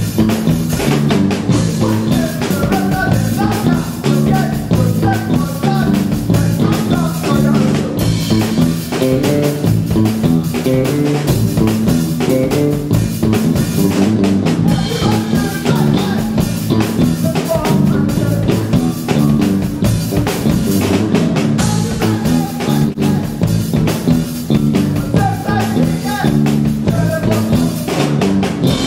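Live rock band playing loudly: electric bass and drum kit driving a steady beat, with guitar.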